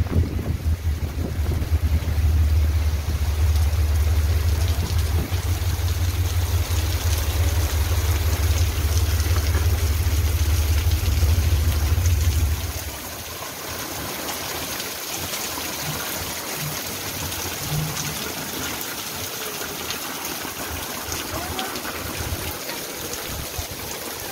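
Steady rain falling, heard as an even hiss, with wind buffeting the microphone as a heavy low rumble for about the first half; about halfway through the rumble stops suddenly and the rain hiss carries on alone.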